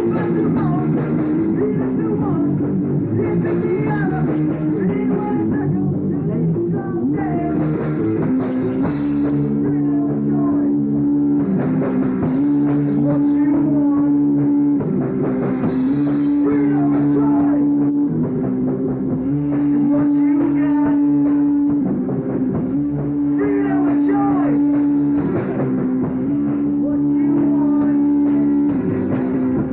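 Rock band playing live with guitar and drums, held chords repeating every few seconds.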